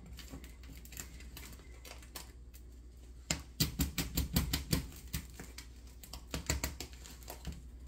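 Quiet at first, then from about three seconds in a run of quick, irregular light clicks and taps: a spatula tapping and scraping against a pan.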